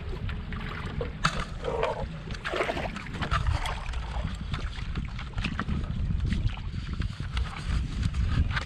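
Canoe moving through choppy water, with water splashing and lapping at the hull, scattered knocks, and a steady low rumble of wind on the microphone.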